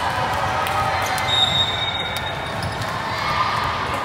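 Gym ambience at a volleyball match: a steady hubbub of voices, with scattered thuds of balls being hit and bounced and a few short, high squeaks.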